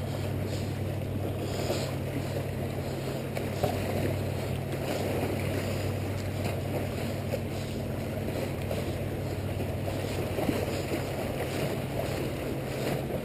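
Small waves washing and splashing against jetty rocks, with wind on the microphone and a steady low drone underneath.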